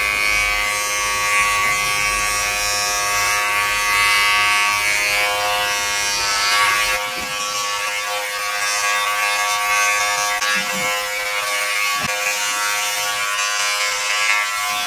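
Philips BodyGroom 7000 body groomer running with a steady electric buzz as it trims armpit hair; a lower rumble beneath the buzz drops away about halfway through.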